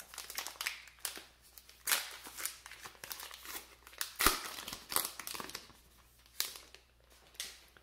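Crinkling rustles of a baseball card pack's wrapper being handled and torn open by hand, in several short bursts.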